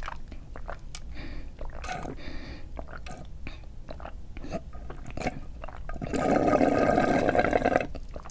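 Close mouth sounds of eating: chewing and lip smacks with many small clicks, then about six seconds in a louder two-second slurp.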